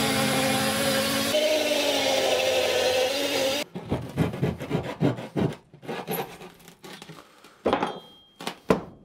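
Electric saw running steadily as it cuts through the boat's wooden joinery to open up access to the wiring. Its pitch shifts slightly about a second and a half in, and it stops at about three and a half seconds. A string of short scrapes and knocks follows.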